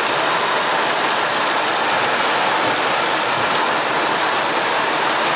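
Heavy rain pounding on a car's roof and windshield, heard from inside the car as a loud, steady, dense hiss.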